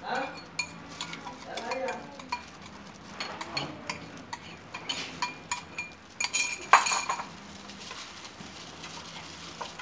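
A metal spoon clinking and scraping against a bowl as marinade is scooped out, in a run of short sharp clicks, loudest in a cluster about six to seven seconds in.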